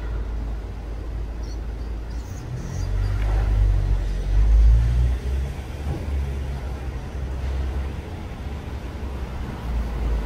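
Low rumble of a passing motor vehicle. It swells to its loudest a few seconds in and then eases back to a steady hum.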